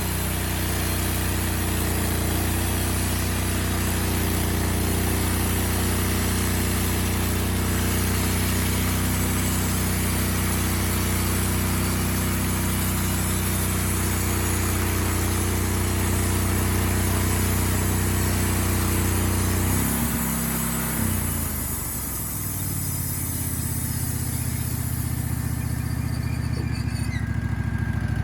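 Wood-Mizer band sawmill's engine running under load while the blade cuts through a hedge apple (Osage orange) log. About twenty seconds in the engine note changes and the cutting noise fades as the cut ends, and the engine keeps running.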